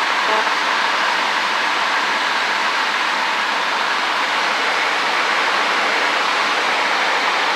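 Steady drone of a Cessna 152's engine, propeller and rushing air heard from inside the cockpit as a constant hiss, with no change in level.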